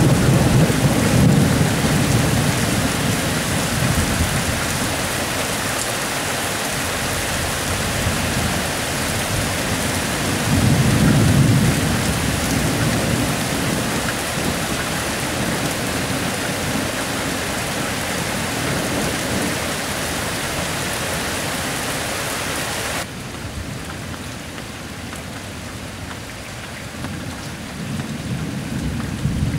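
Steady rain falling through a thunderstorm, with rolls of thunder rumbling deep and low: one at the start, a second about ten seconds in, and a third near the end. About two-thirds of the way through, the hiss of the rain drops off suddenly.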